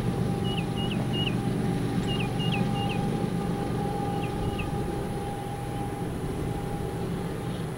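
Approaching EMD SD70MAC diesel-electric locomotive, its V16 two-stroke EMD 710 engine working under power as a low, steady rumble with a faint steady tone above it. A small bird chirps in quick runs of three notes several times.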